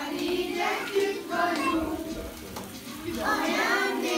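A group of children singing together, a birthday song for the child whose cake is being brought out.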